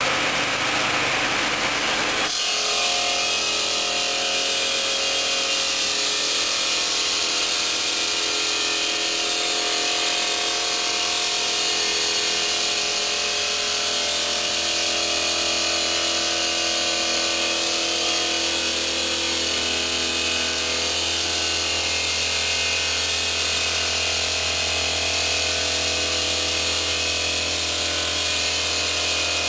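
The large diamond disc of a movable bridge saw cutting through a stone slab, with a steady grinding hiss over the even hum of the blade motor. The sound changes about two seconds in, then holds steady.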